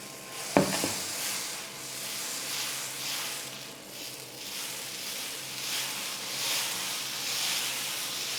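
Dosa batter sizzling on a hot dosa griddle (tawa) as it is poured and spread. The hiss swells and fades about once a second, and there is a single light knock about half a second in.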